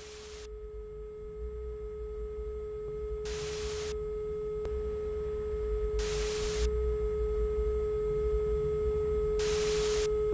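Steady electronic drone tone slowly swelling in loudness over a low rumble. Brief bursts of hiss cut in about every three seconds, four times.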